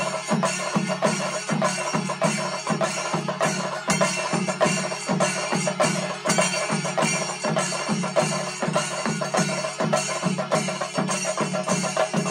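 Pandi melam, the Kerala temple percussion ensemble of chenda drums and ilathalam cymbals, playing a fast, steady beat with an unbroken wash of cymbals.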